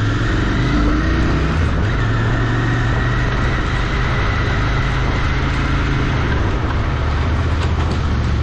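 Royal Enfield Interceptor 650's parallel-twin engine running steadily while riding at road speed, under a rushing haze of wind and road noise.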